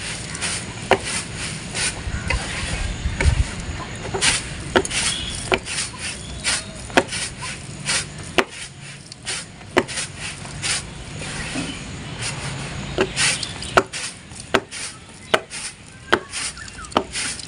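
Blue plastic winnowing tray being jerked and shaken with khosla seed (a small sesame-like seed) on it: repeated sharp taps, roughly one to two a second, over a rustling hiss of seeds sliding across the plastic. The seed has been lightly cracked in a mixer, and the winnowing separates the loosened black husks from the white kernels.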